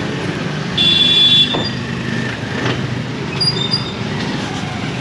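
Busy city street ambience with traffic, and a short, high-pitched squeal about a second in that is the loudest sound. Two quick high chirps come a little past the middle.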